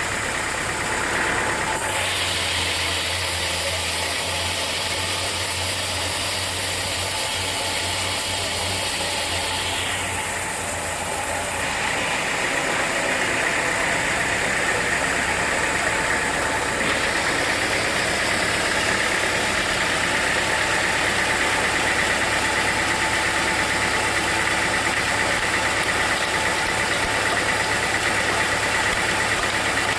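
Sawmill machinery running steadily, a motor-driven saw setup with a constant drone. Its tone shifts about two seconds in and again around the middle.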